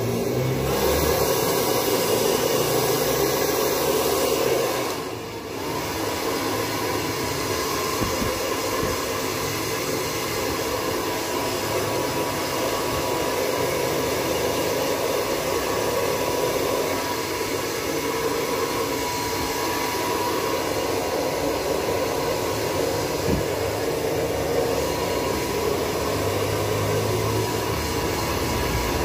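Handheld hair dryer blowing steadily, drying a freshly bathed puppy's coat: a continuous rush of air with a faint steady whine, dipping briefly about five seconds in.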